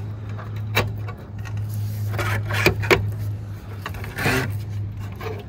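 Metal tile-roof mounting brackets being slid and set against cement roof tiles and a solar panel frame: a few sharp clicks and scrapes, one about a second in, a cluster around three seconds in and a longer scrape a little after four seconds, over a steady low hum.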